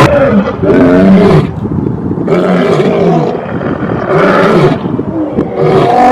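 Lion roaring: a series of loud, deep roars, each about a second long, coming one after another with short breaks between them.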